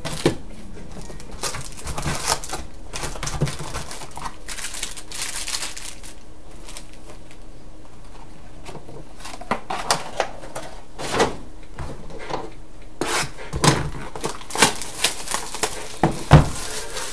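Foil trading-card packs pulled from a cardboard box and shuffled in the hands: a run of crinkles and clicks, sparse through the middle and busy again in the second half.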